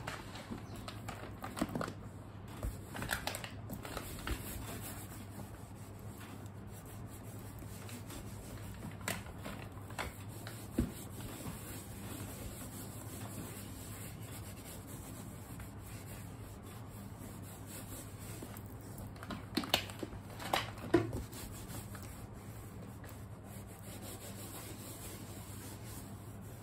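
Faint rubbing and rustling of a cloth working mink oil into a pebble-leather bag, with scattered soft taps and clicks of handling and a cluster of sharper clicks about three-quarters of the way through. A faint steady hum lies underneath.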